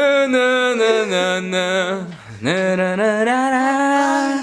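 A man singing a melody without words, unaccompanied, in long held notes. Two phrases, with a short downward dip and break in the voice about two seconds in.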